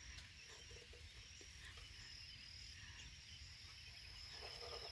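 Near silence: faint outdoor background with a thin, steady high-pitched insect trill.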